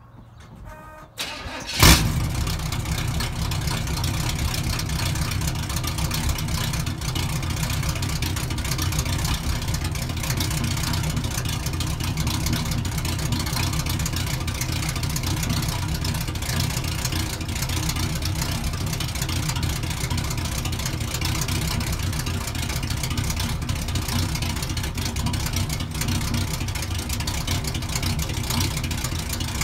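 Small-block Chevy 350 V8 cranking for under a second and firing with a sharp loud pop about two seconds in, then idling steadily on its first start through long-tube headers and an H-pipe with no mufflers.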